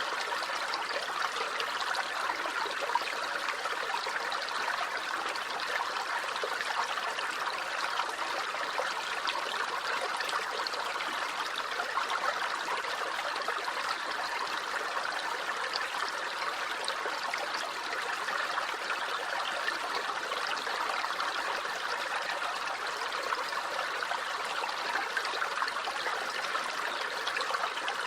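A small stream running over stones, a steady babbling and trickling of water.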